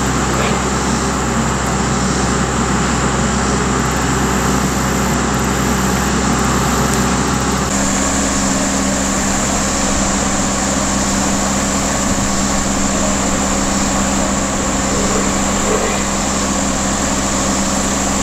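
Tree trimmers' power equipment running, a continuous motor drone. About eight seconds in the sound shifts and settles into a steadier hum.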